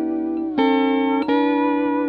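Fender Pro steel guitar with Nick Fryer pickups played through a Fender Bassman valve amp, with no effects. Sustained chords ring on, and a new chord is picked about half a second in and again a little after a second.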